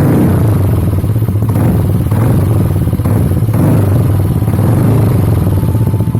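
Yamaha NMAX 155's single-cylinder engine idling through an aftermarket Tridente twin-silencer exhaust, with a fine, even pulse and some clatter. It shows the exhaust shaking at idle because the two silencers hang on only the upper clamp.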